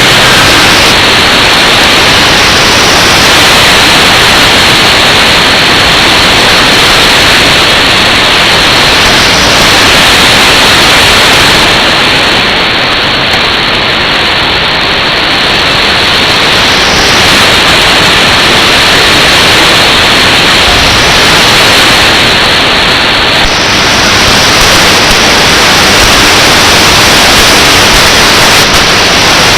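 Loud, steady shortwave radio static and hiss from a receiver tuned to 7300 kHz, with no clear signal heard. The hiss turns brighter near the end.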